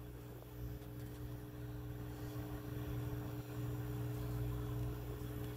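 Steady low electrical hum with a few faint steady tones above it.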